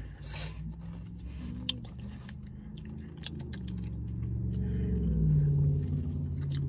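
Crunching and chewing of Pringles Harvest Blends multigrain crisps: irregular short crackly crunches over a low hum that swells toward the end.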